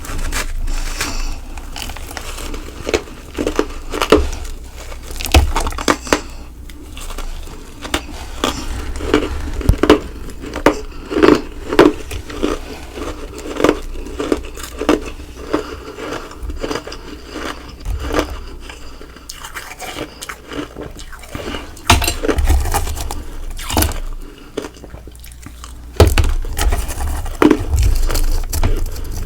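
Close-miked biting and chewing of humidifier frost and nugget ice: a long run of irregular, crisp crunches, thickest near the middle and again toward the end.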